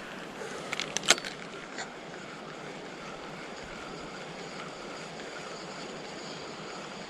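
Steady rush of a flowing river, with a few small clicks and knocks about a second in.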